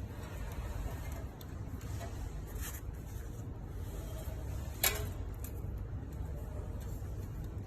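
Plastic cable ties being handled and fastened around wiring: a few faint clicks and one sharper click about five seconds in, over a steady low rumble.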